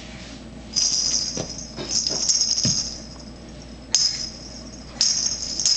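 High metallic jingling in four shaken bursts, as from a small bell or rattle being jostled.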